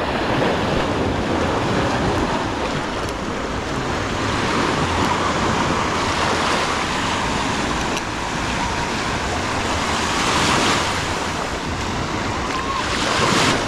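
Sea waves washing onto a sandy beach, a steady wash of surf that swells louder about ten seconds in and again near the end, with wind rumbling on the microphone.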